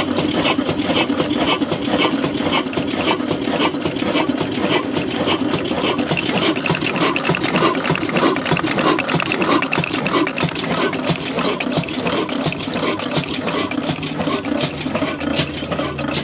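20 HP single-cylinder horizontal diesel engine running steadily, with a fast, even mechanical clatter. A low hum joins near the end.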